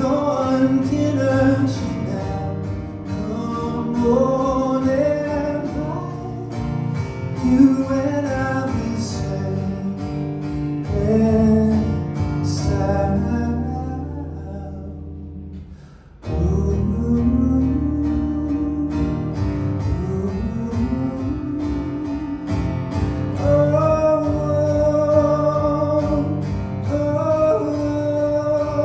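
Live solo performance: a man singing while strumming an acoustic guitar. About halfway through the sound fades down to a low dip, then comes back suddenly with a fresh strum and the voice.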